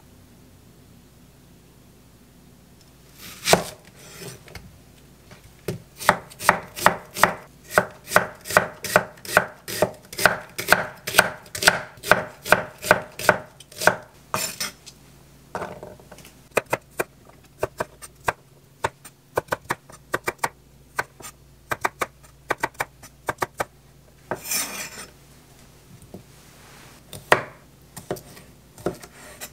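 Kitchen knife slicing an onion on a thick end-grain wooden cutting board, a steady run of about three cuts a second. Then come lighter, scattered knife taps on the board as shrimp are cut, with a couple of brief rustles.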